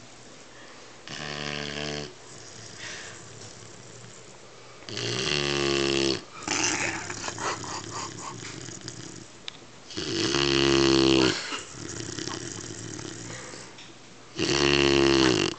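Weimaraner puppy snoring in its sleep: four snores, one every four to five seconds, each about a second long, the first fainter than the rest, with quieter breathing between them.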